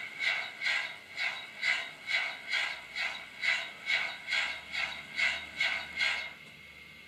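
Model DB class 10 steam locomotive's sound unit playing slow, even steam chuffs, about two a second, as the model runs; the chuffing stops abruptly about six seconds in, leaving a faint hum.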